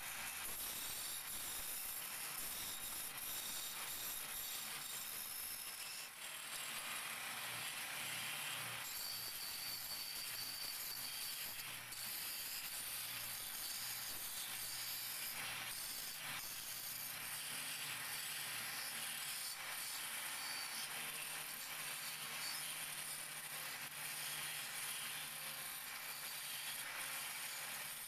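Wood lathe spinning a wooden spindle while a hand-held chisel cuts into it: a steady scraping, shaving noise of the tool peeling off wood, with a faint motor hum underneath. It dips briefly twice as the cut lifts off.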